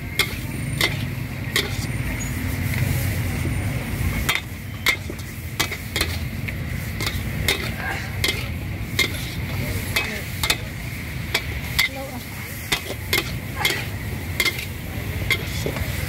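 Long metal spatula clanking and scraping against a large metal wok in a steady stir-fry rhythm, about one strike every three-quarters of a second, as water spinach and meat sizzle in the pan. A low rumble underneath stops about four seconds in.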